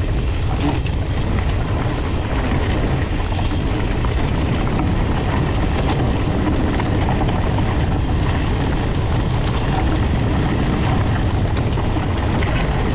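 Steady wind rushing over a GoPro's microphone and knobby tyres rumbling on a dirt forest trail as a mountain bike rides fast downhill, with a few faint clicks and rattles from the bike.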